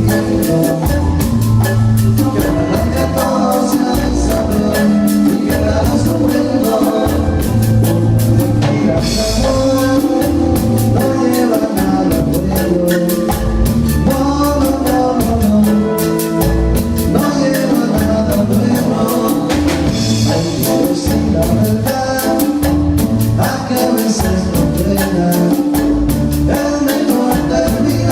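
Live band playing a cumbia tune loudly, with drum kit and bass keeping a steady beat under the melody lines.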